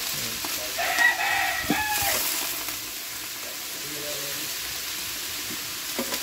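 A rooster crows once, about a second in, for about a second and a half, over the steady sizzle of a pot of chicken cooking on a wood fire.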